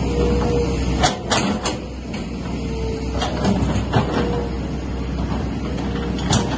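Komatsu excavator's diesel engine running steadily under a low rumble, with several sharp metallic clanks and knocks, the loudest about a second in and again near the end.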